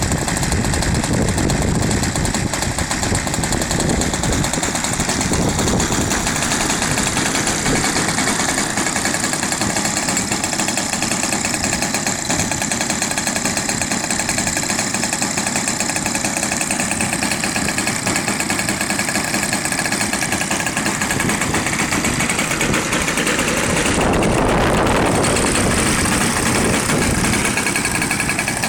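Engine of an Edge 540 V3 radio-controlled model plane running steadily at a constant pitch, a rapid rattling drone. About 24 seconds in, a brief rushing swell rises over it.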